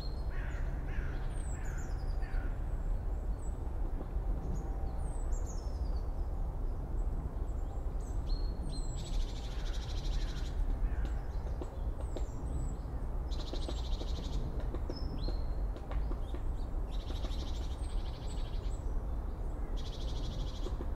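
Forest ambience at the end of summer: birds calling with short high falling chirps and whistles, and a buzzing trill of a second or two that repeats about every four seconds from about nine seconds in, over a low steady rumble.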